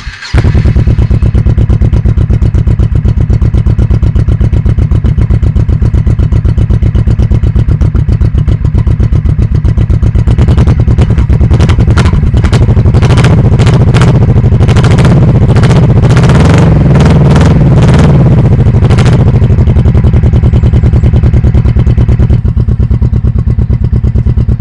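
1998 Honda Shadow VT1100T's 1,100 cc V-twin starting cold right at the outset, catching at once, then idling with a loud, even beat. About ten seconds in, the engine speed rises and falls for several seconds, then drops back to idle.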